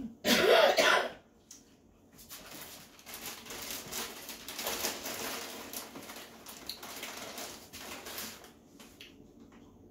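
Small dog chewing crunchy kibble: a fast, dense crackle of crunches for several seconds, fading near the end. A short, loud, voice-like sound comes first.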